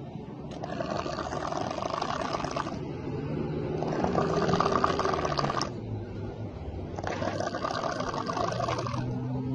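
A person snoring loudly: three long, rattling snores, each about two seconds, coming roughly every three seconds.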